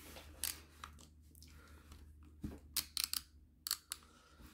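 Clothes iron worked over a sheet of paper on a canvas: the paper crinkles and crackles, with several sharp light clicks and taps, most of them about two and a half to four seconds in, over a faint steady low hum.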